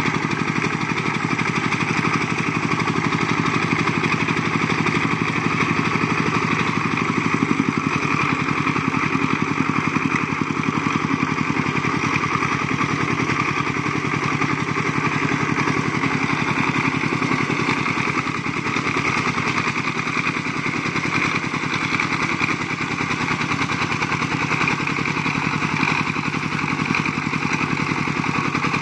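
Single-cylinder diesel engine of a homemade công nông farm truck running steadily with a rapid, even chug, pulling a full load of logs slowly over a steep dirt slope.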